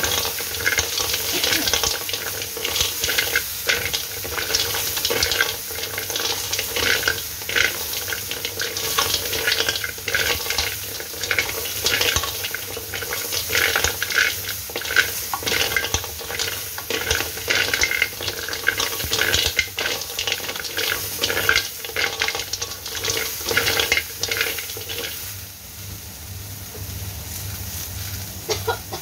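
Sea snails in their shells being stir-fried in a wok with a wooden spatula: the shells clatter and the spatula scrapes over a steady sizzle. Near the end the stirring stops and only a quieter sizzle goes on.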